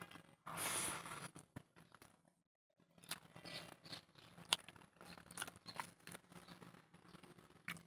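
Close-miked hand eating: fingers pressing and mixing rice on a plate near the start, then a crisp papad breaking with sharp crackles and crunching as it is bitten and chewed.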